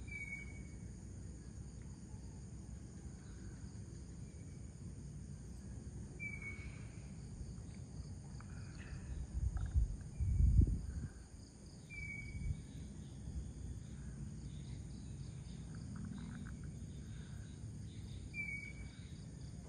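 Steady high-pitched chorus of crickets and other insects, with a bird repeating a short high note about every six seconds, four times. About ten seconds in comes a brief low rumble, the loudest sound.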